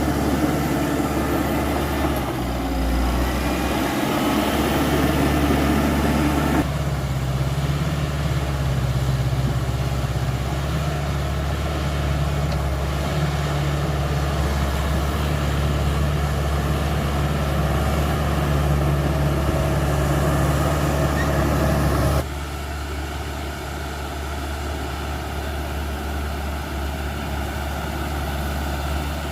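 Caterpillar D5K XL bulldozer's diesel engine running steadily while the dozer works. The sound changes abruptly twice, about a quarter of the way in and again near three-quarters, and is quieter after the second change.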